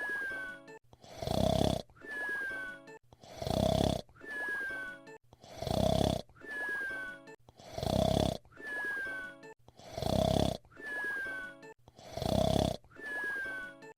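Cartoon whistle-snore, Fred Flintstone's voiced by Henry Corden: a loud snore followed by a short high whistle falling in pitch. The cycle repeats evenly about every two seconds, six times over.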